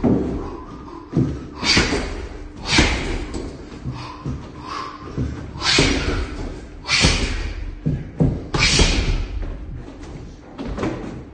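Gloved punches landing on a hanging heavy punching bag: about eight heavy thuds at irregular intervals, some in quick pairs.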